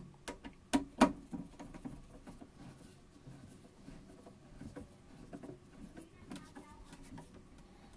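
A long screwdriver turning a case screw down a deep screw well in the plastic back case of an Apple Macintosh SE. A few sharp clicks come in the first second, then faint, irregular scraping and ticking as the screw is driven in.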